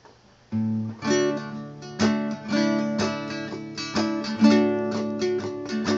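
Acoustic guitar strumming chords as an intro, starting about half a second in after a brief near-silence.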